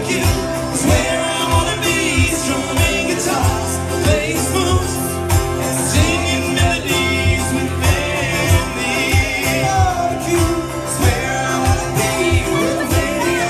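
Live band playing a song: a man singing into a microphone over guitars, with a steady beat.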